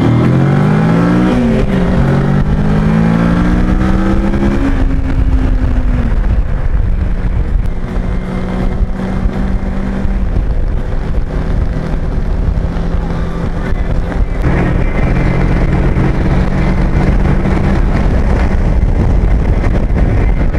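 Kawasaki Versys 650 parallel-twin motorcycle engine accelerating. Its pitch rises and drops back twice in the first two seconds as it shifts up, then it holds a steady note at cruise. The engine note jumps up again abruptly about two-thirds of the way in, over steady low wind rumble on the microphone.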